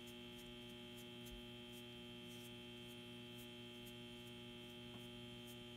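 Steady electrical mains hum at a very low level, with faint, irregular light ticks a few times a second.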